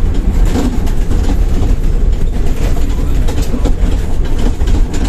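Moving bus heard from inside the cabin: a steady low engine and road rumble with rapid, irregular rattling and knocking of the body and fittings.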